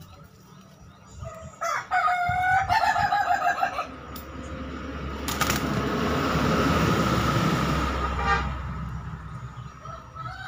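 A rooster crows once, a pitched, pulsing call about two seconds long. Then a rushing noise with a low rumble swells and fades over about three seconds, with a sharp click as it begins.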